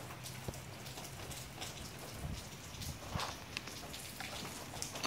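Light rain pattering steadily, with scattered drips ticking on hard surfaces.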